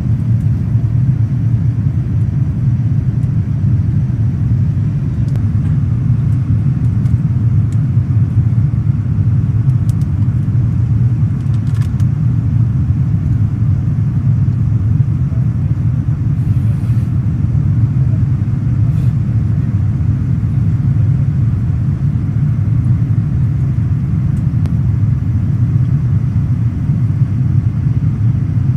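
Steady low rumble of an airliner cabin on approach to landing: jet engine and airflow noise heard from inside the cabin, with a few faint clicks.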